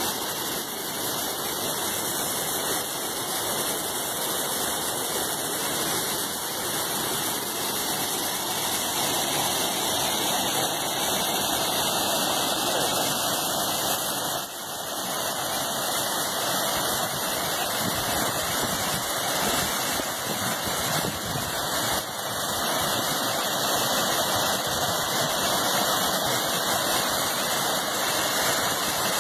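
Steady rush of water pouring over a concrete stepped spillway weir on a river running full after rains.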